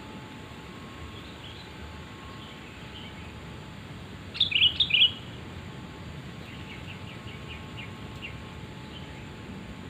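Sooty-headed bulbul calls. A loud burst of about four quick notes comes around four to five seconds in, with fainter calls before it and a faint run of short chirps after.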